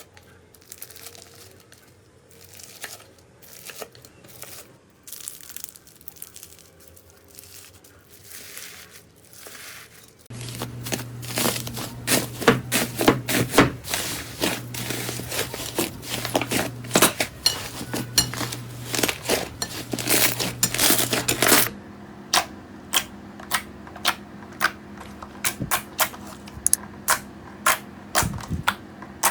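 Slime being squeezed and poked, giving a run of crackling, crunching pops and clicks. The sound changes twice as the clips cut, about a third and two thirds of the way in; the middle stretch is louder and denser, with a steady low hum beneath it.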